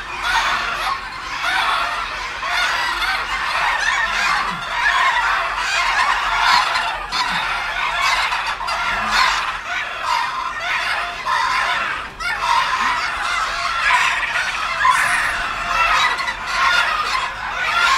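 About fifteen bantam roosters crowing over one another without pause, the calls overlapping so that one crow runs into the next.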